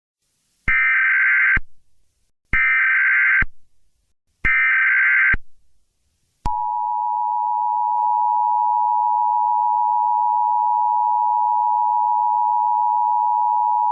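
Emergency Alert System header: three short bursts of SAME digital data tones, about a second each with short gaps between. From about six and a half seconds in comes the steady two-tone EAS attention signal.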